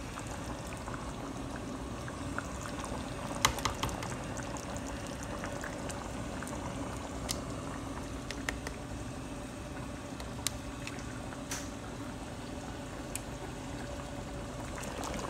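Chicken in tomato sauce bubbling at a simmer in a pan on the stove, with a faint steady hum underneath. A few sharp clicks of a spoon against the yogurt tub, the loudest about three and a half seconds in.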